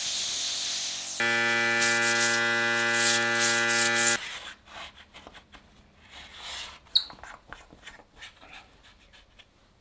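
A burst of air hiss as sawdust is cleared out of a routed groove in plywood, then a steady, even-pitched motor hum for about three seconds that stops abruptly. After it come light wooden clicks and knocks as a round plywood puck is set into the groove.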